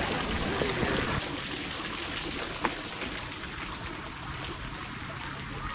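Garden fountain jets splashing into a stone water channel, a steady rush of running water that is loudest for about the first second, then fades to a quieter steady wash. A single sharp click comes near the middle.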